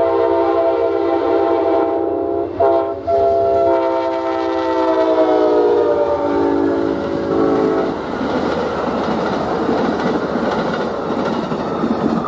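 Horn of an Amtrak GE P42DC locomotive sounding a long chord, broken once briefly about two and a half seconds in, then falling slightly in pitch as the locomotive passes; it stops about eight seconds in. After that comes the steady rumble and clatter of the bi-level Superliner passenger cars rolling by.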